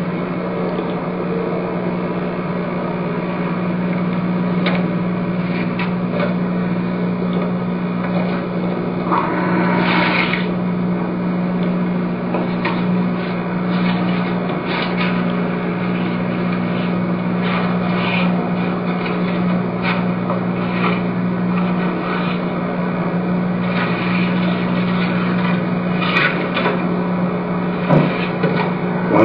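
A steady low hum under a constant hiss, with a few faint knocks and taps scattered through.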